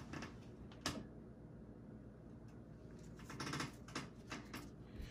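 Faint, scattered light clicks and taps: one sharper click about a second in, then a quicker run of small clicks in the second half.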